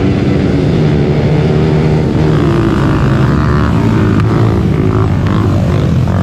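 Several racing ATV (quad) engines revving hard together. From about two seconds in, nearer engines come up louder and slide up and down in pitch as the quads pass close by.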